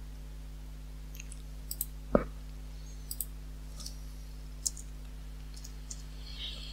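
A few scattered clicks from a computer's input devices while working in software, one louder than the rest about two seconds in, over a steady low electrical hum.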